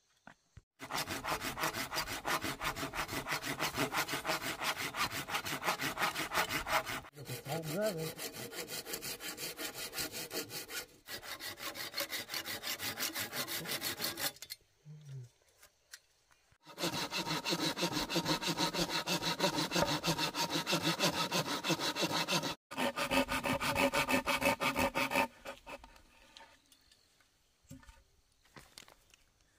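Hand saw cutting through a thick green bamboo culm in fast, even back-and-forth strokes. The sawing comes in several runs with a short pause near the middle and stops a few seconds before the end.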